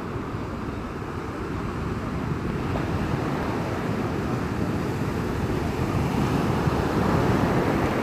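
Ocean surf breaking and washing up a sandy beach, a steady rushing wash that swells louder in the last few seconds as a wave runs up the shore, with wind buffeting the phone's microphone.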